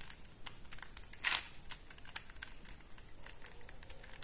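Plastic clicking and clacking of a QJ Super Square-1 puzzle's layers being turned by hand: a scatter of small clicks with one louder rattling turn about a second in.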